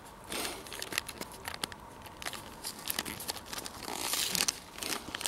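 Scotch egg's food packaging crinkling and crackling as it is handled, in irregular clicks and rustles.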